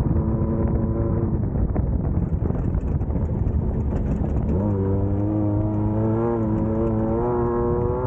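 Class 1600 off-road race car's air-cooled VW 1600 engine running hard over a loud, rough rumble. Its pitch climbs sharply about halfway through, then keeps rising slowly as it revs on.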